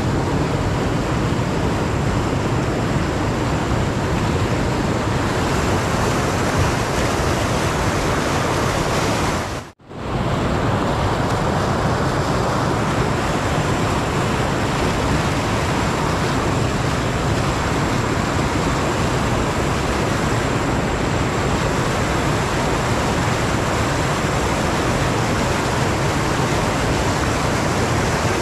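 River rapids rushing steadily, a loud even noise of white water. It cuts out for an instant about ten seconds in.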